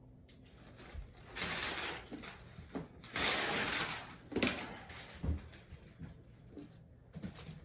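Tape being peeled off during the floor heating mat install: two long rasping pulls a second or so apart, with shorter tearing and handling noises around them.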